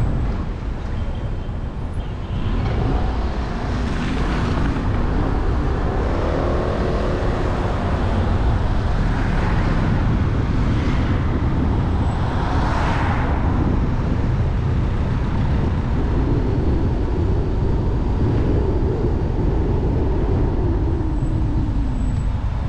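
A car driving along a road: steady low engine and tyre rumble, with a few brief swells of hiss and some slow rises and falls in pitch.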